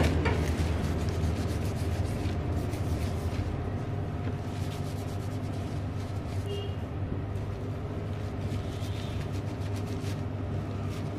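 A steady low hum runs throughout, with scattered short clicks and rubbing from a tissue wiping a plastic MP4-player casing.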